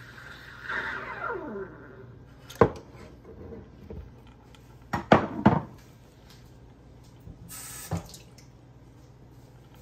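Gaggia Classic Pro steam wand hissing in milk in a stainless steel pitcher, with a falling squeal as the steaming ends about two seconds in. Then several sharp knocks of the metal pitcher being handled and set down on the countertop, and a brief high hiss near the end.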